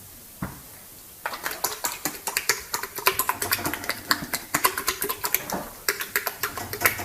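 A rapid, irregular clatter of sharp clicks and taps, starting about a second in and running on for several seconds, after a single soft thud.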